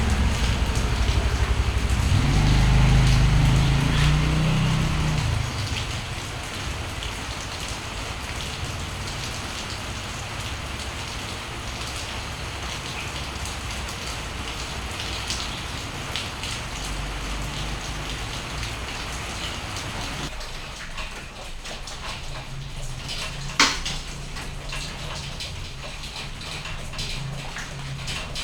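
Steady rain falling and pattering on surfaces. A motorcycle passes in the first few seconds, its low rumble swelling and fading, and a single sharp click sounds about 23 seconds in.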